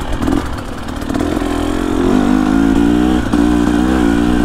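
Dirt bike engine revving hard under load, its pitch rising and falling as the throttle is worked, getting louder about two seconds in.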